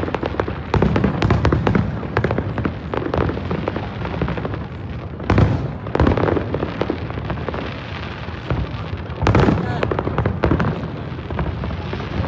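Aerial fireworks bursting in a continuous show: a fast run of crackling pops over a low rumble, with heavier booms about five seconds in and again about nine seconds in.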